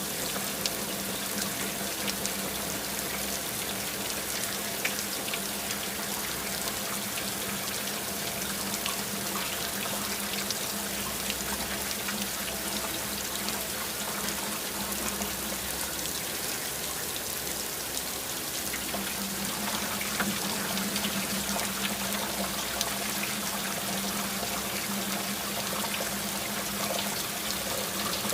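Water running steadily, a continuous splashing flow with a low steady hum underneath.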